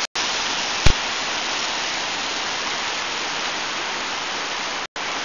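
Rushing whitewater of a mountain river, a steady hiss of churning rapids. A single sharp click sounds about a second in, and the sound cuts out briefly twice.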